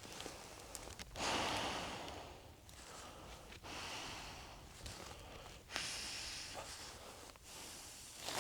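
A person breathing audibly close to the microphone: several slow, hissy breaths about every two seconds.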